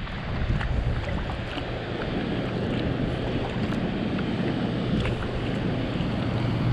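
Strong, gusty wind buffeting the microphone over water rippling around a kayak, with a steady low hum underneath.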